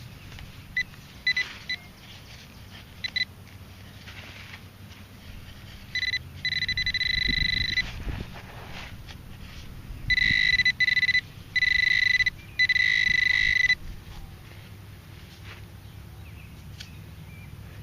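Metal detector sounding off over a buried target: a few short beeps, then long steady tones of one pitch held for a second or more, broken by brief gaps. Soft thuds of digging come in between.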